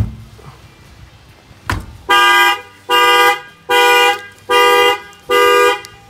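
A fist knocks twice on the wheel of a 2018 Toyota Camry, and about two seconds in the factory alarm goes off, tripped by an add-on shock sensor. The car's horn sounds five short, loud honks at an even pace, a little under one a second.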